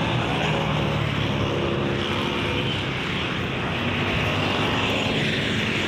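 Steady road-traffic noise with the hum of a running motor-vehicle engine.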